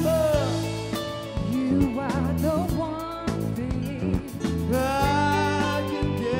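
A song: a singer holding long, gliding notes over a band with bass and drums.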